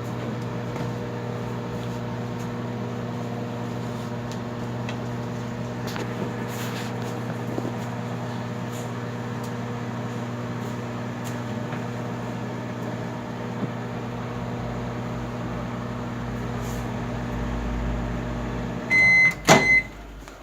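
Microwave oven running with a steady electrical hum while it heats a marshmallow. Near the end, a short high beep sounds as the cycle ends, followed by a sharp knock.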